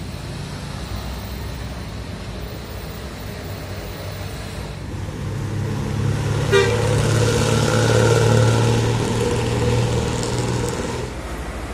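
Hino RK8 coach's diesel engine running as the bus pulls up close, growing louder about halfway through. A horn sounds from a little past the middle for about four seconds, over the engine.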